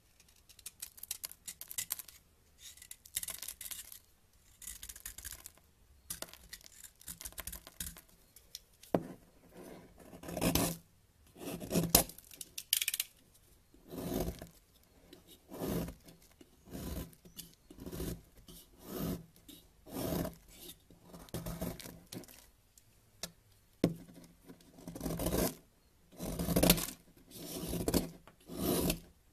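Utility-knife blade shaving and scraping a bar of dry, crumbly white soap. Light scattered scrapes at first, then from about a third of the way in louder, crisp scraping strokes about once a second.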